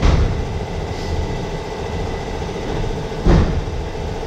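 Low rumble of a moving vehicle heard from inside, with a knock at the start and another about three seconds in.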